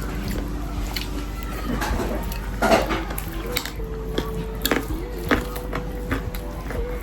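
Cutlery clinking against a dinner plate during a meal: scattered light clicks, with one louder clatter a little under three seconds in.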